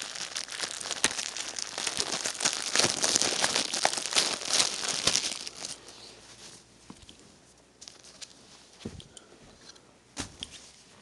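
Glossy plastic wrapping around a folded t-shirt crinkling and tearing as it is pulled open, dense and continuous for about the first six seconds. Then quieter, scattered rustles as the shirt comes out, with a soft knock near the end.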